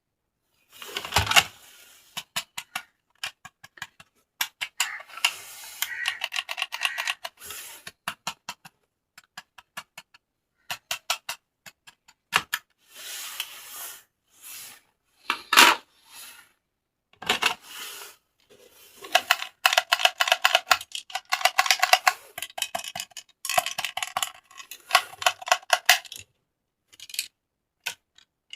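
Plastic toys and packaging handled close up: bursts of rapid clicking and rattling, with short crinkling rustles and a few sharp taps.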